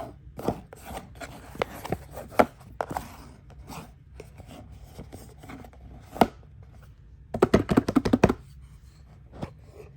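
Hands handling and opening a watch box: scattered taps, clicks and rubbing of cardboard and plastic packaging, with a quick run of clicks and knocks about seven and a half seconds in.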